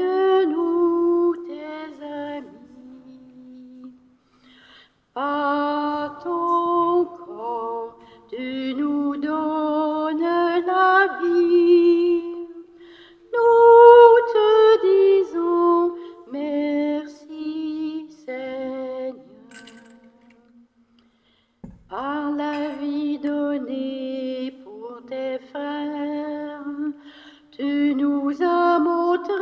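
A woman singing a hymn solo and unaccompanied, in phrases, with two short pauses: about four seconds in and just before the last third.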